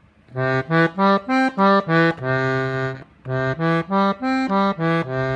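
Victoria chromatic button accordion (C-system) played on the treble side with the bassoon register, its low reedy voice: two quick phrases of short detached notes, each ending on a held note.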